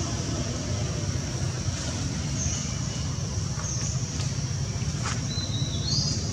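Outdoor ambience: a steady low rumble under a constant high-pitched hum, with a few short high chirps and faint clicks scattered through.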